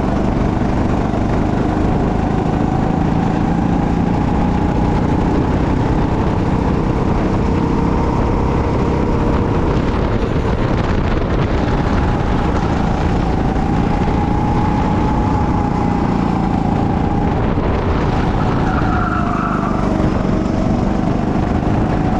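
Go-kart engine running under way, its pitch rising and falling as the throttle is worked through the corners, over a steady rush of noise.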